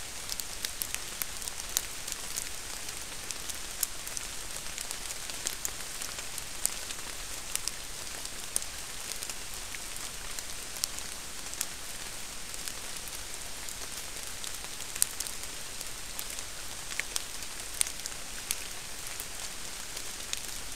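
A trail camera's microphone gives a steady hiss with a thin, high electronic whine. Irregular sharp ticks and crackles run through it several times a second.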